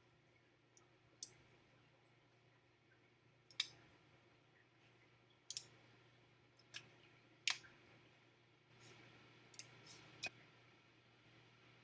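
Clear glue-and-borax slime being stretched and handled, giving about eight scattered sharp little clicks and pops.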